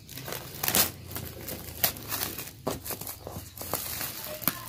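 Thin plastic shrink-wrap being torn and peeled by hand off a cardboard box, crinkling with a few sharp rips.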